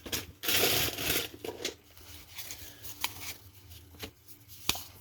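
Baseball cards being handled and flipped by hand: a papery rustle about half a second in that lasts about a second, then a few sharp light clicks of cards being moved.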